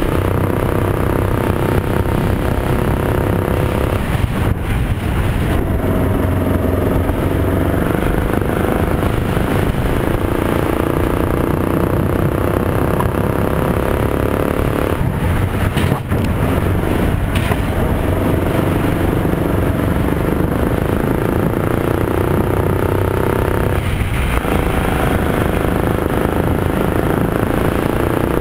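Rental go-kart engine heard from the driver's seat, its pitch rising as it accelerates and falling back briefly where the driver lifts off, about four seconds in, around the middle and near the end.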